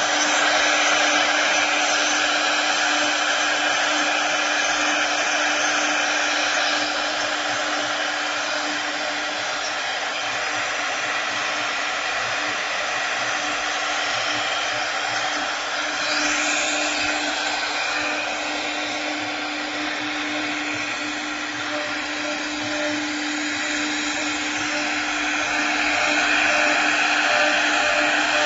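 GC1220ATC-AS CNC wood lathe running, with a steady hum under a continuous hissing whir.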